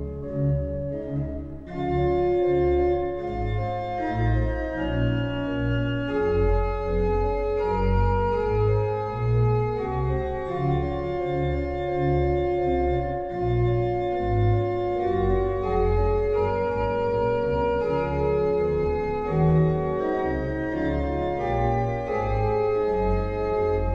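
Pipe organ playing a piece of music: sustained chords over a moving bass line, the sound filling out with brighter upper tones about two seconds in.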